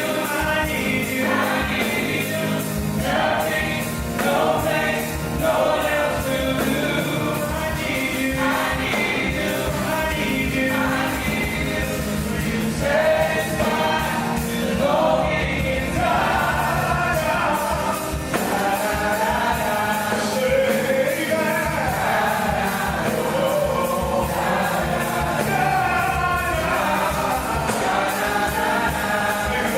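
Gospel music: a choir singing over instrumental accompaniment.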